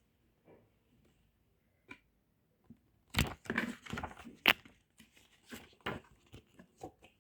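Packaging being handled and torn open: a few isolated clicks, then from about three seconds in a dense run of crinkling, ripping and sharp crackles.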